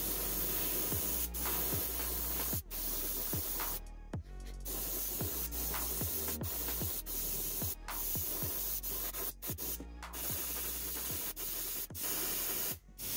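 An airbrush spraying paint gives a steady hiss of air, broken by short pauses several times as the trigger is let off.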